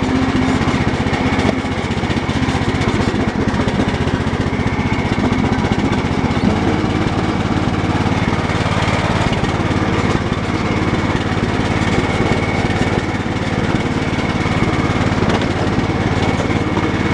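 Cub Cadet 1018 lawn tractor engine running steadily, with a fast, even beat and a thin high steady tone over it.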